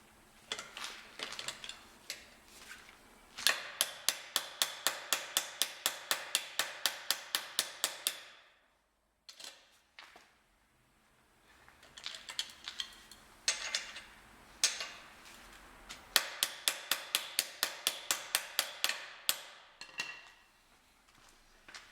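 Hammer striking a socket or lock key being driven onto a rusted, damaged wheel lock bolt: runs of quick, evenly spaced sharp metal blows, about three to four a second, with a pause of a couple of seconds in the middle.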